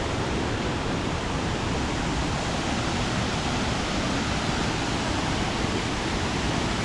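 Sera Ella waterfall pouring, a steady, unbroken rush of falling water.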